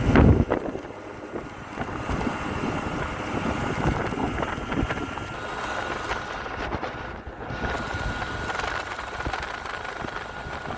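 Small two-stroke scooter engine from a Hyosung Sense running steadily, with a faint steady whine, after being newly swapped in. There is a brief louder burst right at the start.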